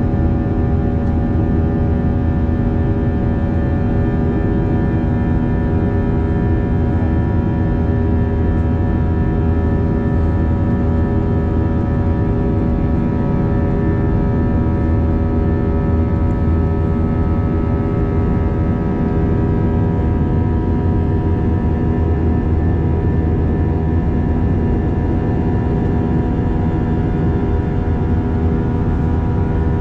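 Airbus A321 jet engines heard from inside the passenger cabin: a steady, loud rush of engine and air noise with a constant multi-tone hum, unchanging throughout.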